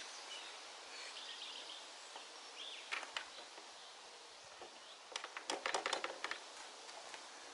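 Light clicks and knocks of an air filter and its cover being fitted onto a lawnmower's engine: a couple about three seconds in, then a quick cluster from about five to six seconds. Birds chirp faintly under steady outdoor noise.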